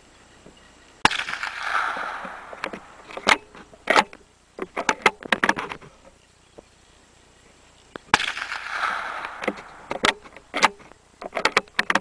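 Two shots from a CZ 452 American .22 LR bolt-action rifle, about seven seconds apart, each a sharp crack with an echo trailing off over a second or so. Each shot is followed by a run of short metallic clicks as the bolt is worked to eject the case and chamber the next round.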